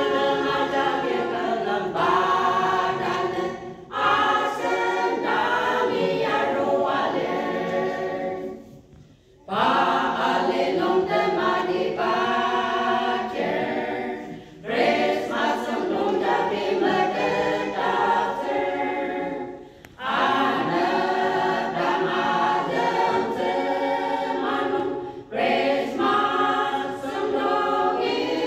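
Women's choir singing a hymn together, unaccompanied, in phrases of about five seconds with short breaks for breath between them.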